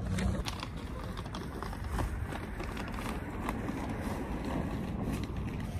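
Street ambience with rustling and small knocks from bags and a hand-held phone carried while walking: a steady murmur of noise with scattered clicks.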